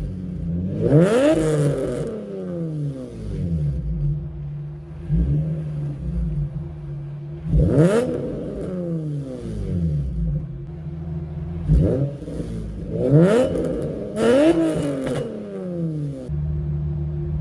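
Infiniti G35 coupe's 3.5-litre V6 exhaust, fitted with ISR resonated test pipes and an HKS exhaust, idling steadily and blipped several times, the revs shooting up and dropping back each time.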